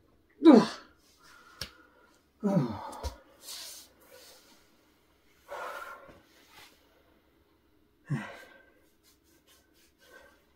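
A person's wordless effort sounds: several short grunts and gasps that fall in pitch, the loudest about half a second in, and a hissing breath out a little after three seconds, as they strain against a mirror that will not move.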